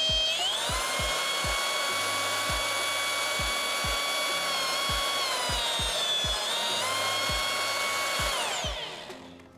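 Milwaukee M18 cordless polisher running with a high gear whine. Its speed steps up about half a second in, sags briefly past the middle, comes back up, then winds down and stops near the end. The whine is gear noise from the dry, poorly greased gear head, not motor noise.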